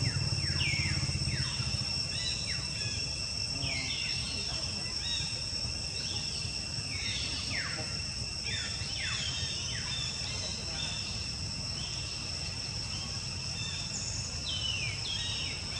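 Forest ambience: insects keep up a steady high-pitched drone, with many short chirps that fall in pitch scattered throughout.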